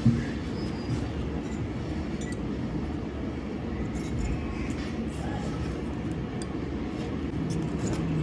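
Steady low background rumble with a sharp knock right at the start and scattered light clicks and clinks.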